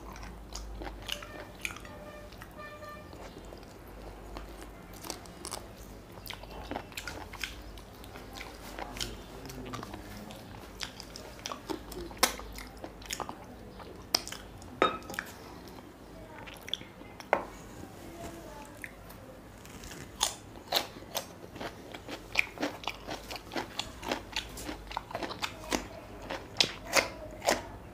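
Close-miked mouth sounds of a person eating mutton curry with luchi by hand: steady chewing with many sharp wet clicks, smacks and crunchy bites, coming more often in the last third.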